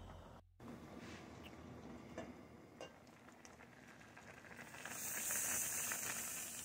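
Stockpot of turkey brine bubbling on the stove: a faint hiss of boiling liquid with a few small ticks, turning louder and brighter about five seconds in.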